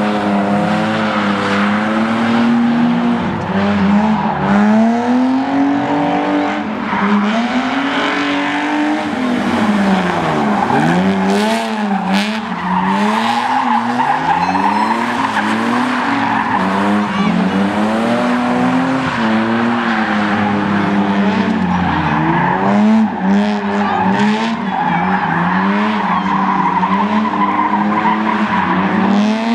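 Cars drifting: engines revving hard, their pitch rising and falling again and again as the drivers work the throttle, with tyres squealing through long slides.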